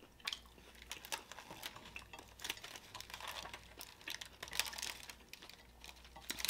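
Aluminium foil wrapped around a burrito crinkling as it is gripped and lifted, a scatter of irregular sharp crackles.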